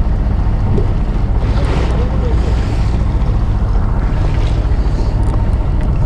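A boat's engine running steadily under wind buffeting the microphone and the wash of waves.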